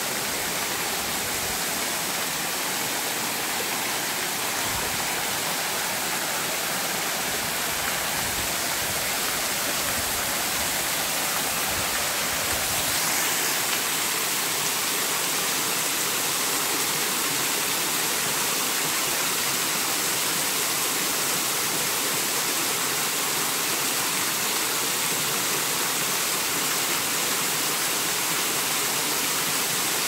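Bigăr Waterfall: many thin streams of water falling over a moss-covered rock dome and splashing into the pool below, a steady rushing hiss. A low rumble underneath drops away about 13 seconds in.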